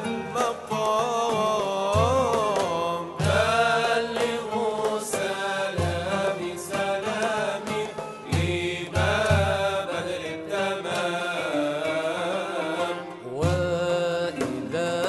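Arabic devotional song (ibtihal) sung by male voices in winding, ornamented melodic lines over repeated low frame-drum beats.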